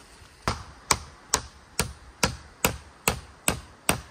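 Hammer driving a nail into a wooden pole: nine sharp, evenly paced strikes about two a second, starting about half a second in.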